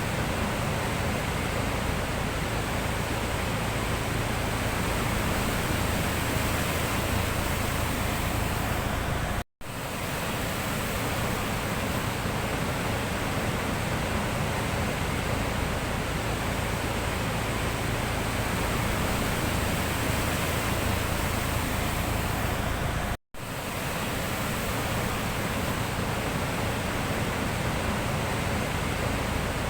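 Sea surf, a steady even wash of noise with no separate wave breaks standing out. It cuts out abruptly twice, about a third of the way in and again about three-quarters through, and swells back in each time.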